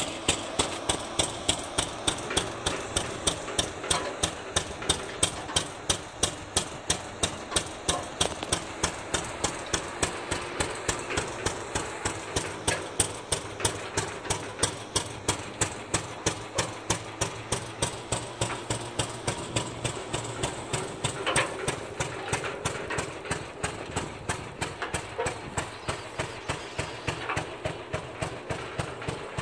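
Fairbanks 346 engine running an oil-well pumping unit, with a steady, even exhaust beat of about three pops a second.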